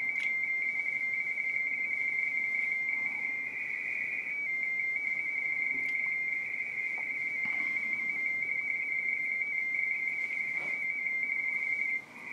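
Radio teletype (RTTY) signal from an Icom IC-7300 transceiver's speaker: a steady high-pitched two-tone warble of frequency-shift keying as the radio receives another station's contest exchange. It drops out briefly near the end, then resumes.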